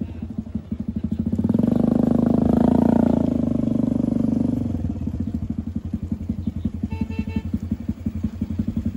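Homemade buggy's 110cc single-cylinder petrol engine running with a fast pulsing beat, swelling louder for a few seconds as it pulls under load, then settling back to a softer putter from about five seconds in.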